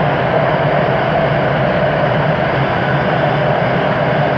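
Siemens Inspiro metro train running at speed, heard from inside the passenger car: a steady rumble of wheels on rail with a constant hum from the running gear.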